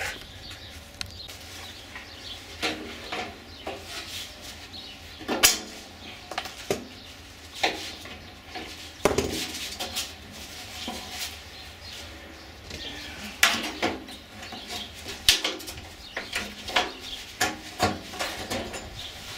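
Scattered metal clanks, knocks and clinks as a sheet-metal squirrel cage blower housing is handled and its motor mount worked loose, with a few louder knocks among lighter clicks.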